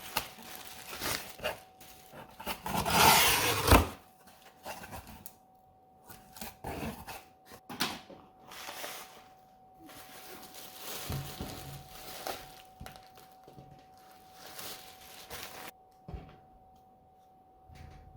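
Packaging of a Blu-ray box set being handled and opened: irregular rustling and tearing with knocks and bumps, loudest about three seconds in and sparser toward the end. A faint steady high hum runs underneath.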